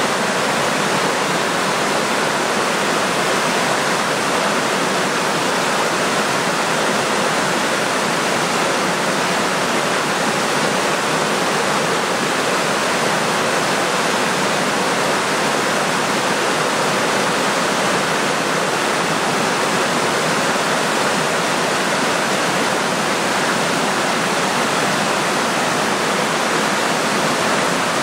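Creek water cascading over a series of low stepped rock ledges: a steady, unbroken rush of falling and churning water.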